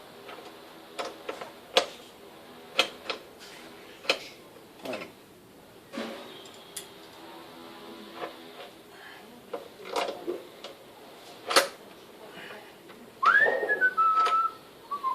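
Scattered light clicks and taps as the fender bracket's bolts and parts are fitted by hand. Near the end comes a short whistled phrase, the loudest sound, that rises and then steps down in pitch.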